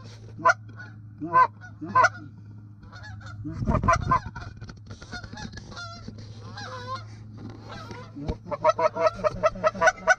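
Geese honking: scattered single honks in the first few seconds, then a quick run of honks near the end.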